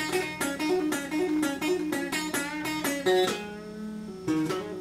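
Telecaster-style electric guitar playing a slow blues riff: a run of picked notes, about four a second, then a note held for about a second before the picking starts again near the end.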